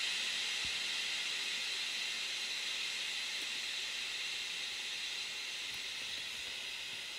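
Wind rustling through tree leaves: a steady hiss that slowly fades.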